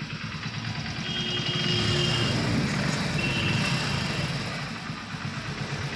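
Hero Splendor BS6 single-cylinder motorcycle engine running with a newly fitted timing chain, which replaced a worn, loose chain that had been rattling. The engine picks up a little about a second in and eases back toward the end.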